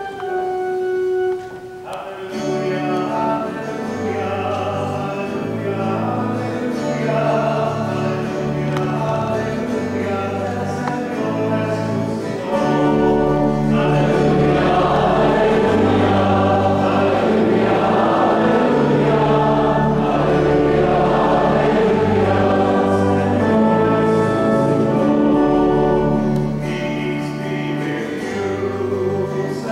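Church organ accompanying a choir singing a hymn, with long held chords over sustained bass notes; the singing grows fuller about halfway through.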